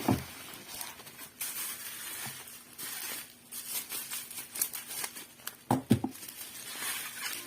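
Plastic packaging crinkling and rustling in irregular spells as it is handled and unwrapped, with a brief louder sound about six seconds in.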